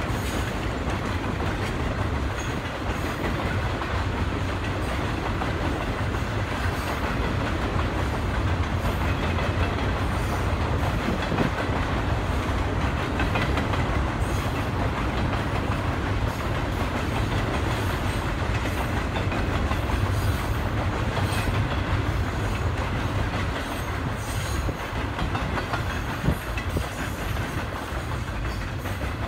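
Freight train's double-stack container cars rolling past: a steady low rumble with clatter of steel wheels on the rails, and one sharper knock near the end.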